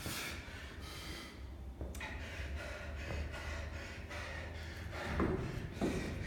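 A man breathing hard while resting mid-workout, with two heavy breaths about a second apart at the start, then quieter panting. A few dull thumps near the end.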